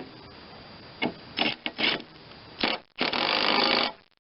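Tools working the nut on a rebuilt mower-deck spindle as it is tightened down: a couple of sharp clicks, a few short scraping bursts, then about a second of continuous rattling noise near the end.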